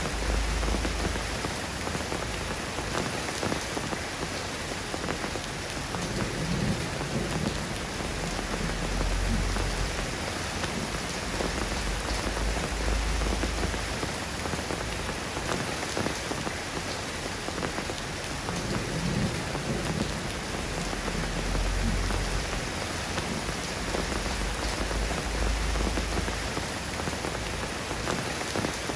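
Steady rain falling, an even hiss of many drops, with low rumbles of distant thunder swelling and fading several times.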